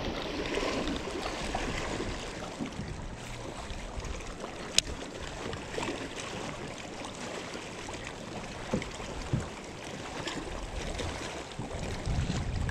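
Water lapping against the hull of a bass boat in the wind, a steady wash of noise. A single sharp click comes about five seconds in, and a couple of faint knocks follow later.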